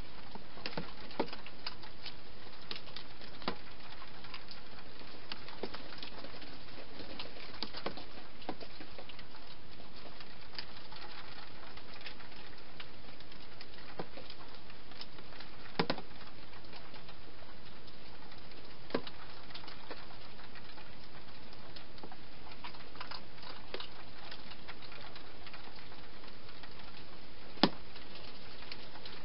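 A hedgehog eating inside a plastic feeding box: irregular crunching clicks and small knocks over a steady hiss, with two sharper knocks about halfway through and near the end.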